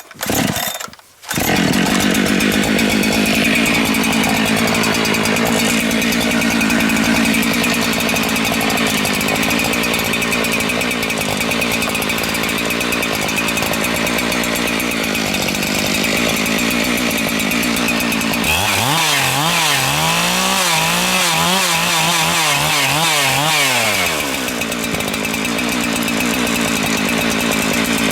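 Two-stroke chainsaw at full throttle under load, cutting through a log; it comes on hard about a second in. For several seconds in the second half the engine note wavers up and down, then settles back to a steady run.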